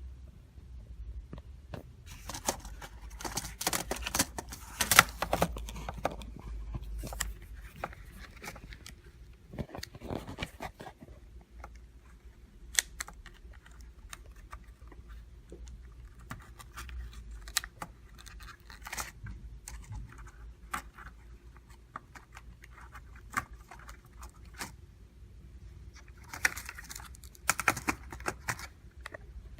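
Plastic clicks, scrapes and rustles of a Dell Vostro 1520 laptop being worked on during a keyboard replacement, with a faint steady hum underneath.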